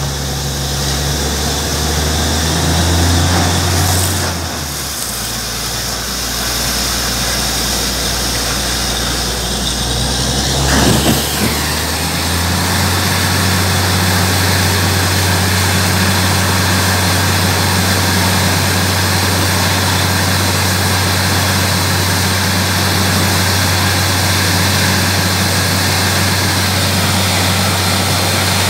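Borewell drilling rig's engine and compressor running steadily under a continuous hiss of compressed air blowing water and mist up out of the bore. The engine note shifts about four seconds in and again about twelve seconds in, then holds steady.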